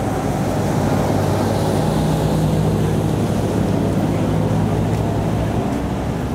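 Steady low rumble of street traffic with a constant engine hum, and wind buffeting the microphone.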